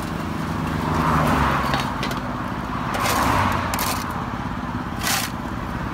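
Shovel and rake scraping loose asphalt mix across road asphalt, several short sharp scrapes about a second apart, over a steady low engine hum and passing traffic.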